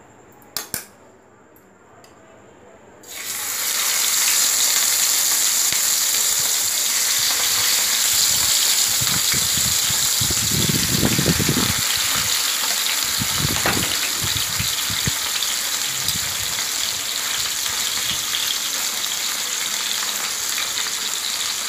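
Pieces of katla fish, rubbed with salt and turmeric, sizzling as they are lowered into hot mustard oil in a frying pan on high heat. A single click comes first, then the loud, steady frying sizzle starts about three seconds in and keeps going.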